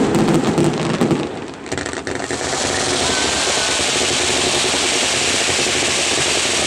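Fireworks crackling with rapid pops for the first second and a half. Then a steady, loud hiss of ground fountains spraying sparks takes over.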